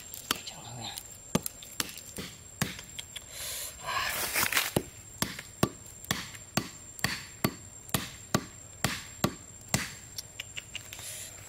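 Hammer blows knocking a wooden stake into the ground: a steady run of sharp knocks, about two a second.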